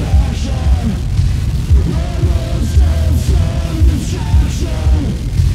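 Experimental industrial punk noise music: a dense, heavy low end under wavering pitched tones, with repeated loud hits.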